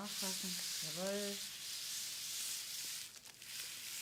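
Slippery glider fabric rubbing and rustling as it is drawn out of a compression stocking by its loop, with a brief voice sound in the first second and a half.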